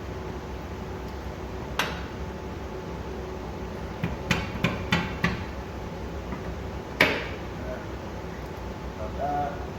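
Metal knocks from a steel pin being hammered into place on a tire changer. A single strike comes about two seconds in, a quick run of about five strikes follows around the middle, and a loud, briefly ringing strike comes near seven seconds.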